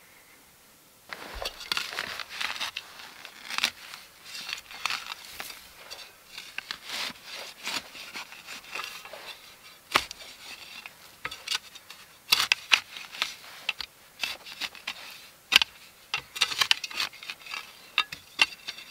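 Small folding shovel scraping and chopping into dry, gritty soil, tunnelling the connecting air channel between the two holes of a Dakota fire hole. It starts about a second in: an uneven run of gritty scrapes with sharp knocks of the blade in the dirt.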